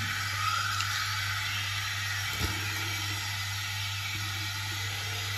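Tap water running steadily as a shaving-soap puck is rinsed under it, with a small click about two and a half seconds in.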